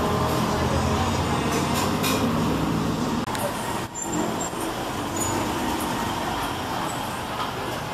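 Street traffic, with a heavy vehicle's engine running close by for the first few seconds, then passing cars and trucks.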